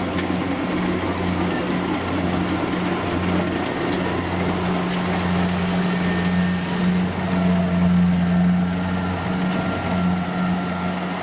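Kubota DC70 combine harvester's diesel engine running steadily as the machine tracks through a flooded rice paddy, a constant low hum, with a faint higher whine joining about halfway.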